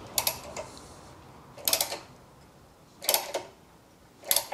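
Ratcheting tap wrench clicking in four short bursts about every second and a half as the handle is swung back and forth, driving a thread-repair tap into a soft aluminium cylinder head.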